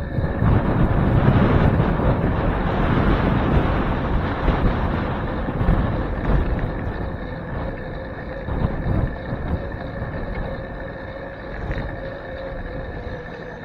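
Wind buffeting the microphone of a bicycle's handlebar camera, with a dense low rumble from the ride. It is loudest in the first few seconds and eases off as the ride goes on.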